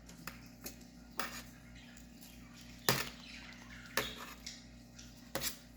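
Sharp small clicks and light scraping of a tool prying at the plastic case and coin-cell battery of a car key fob, about six clicks spaced irregularly, the loudest about three and four seconds in.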